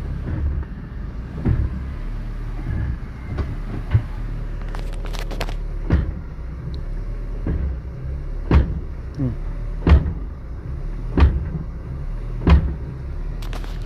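Ford Ka Zetec engine idling steadily, with a sharp clunk from the drivetrain every second or two as reverse is engaged. The clunking is the sign of a worn-out gearbox mount, which turns out to be torn apart.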